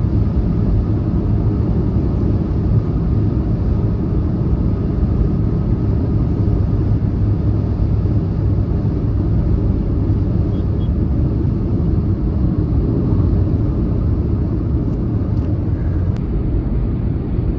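Steady low rumble of road and engine noise from a car cruising at highway speed, heard from inside the cabin.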